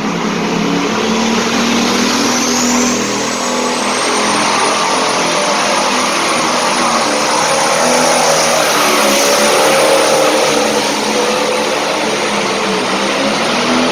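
Hot farm pulling tractor's turbocharged diesel engine running at full throttle under load, loud and steady, during a pull down the track. A high turbo whistle rises about two to three seconds in and then holds.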